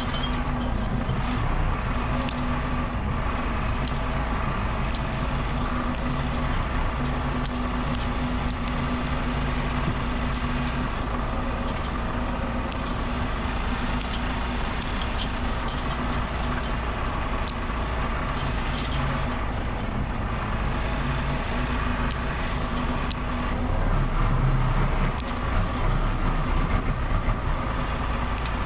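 Vehicle engine running steadily, with scattered light clicks and knocks; it gets somewhat louder near the end.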